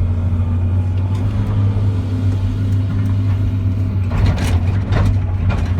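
Excavator's diesel engine running steadily under load. About four seconds in, a run of sharp metal crunches and clanks begins as the machine breaks up the forklift.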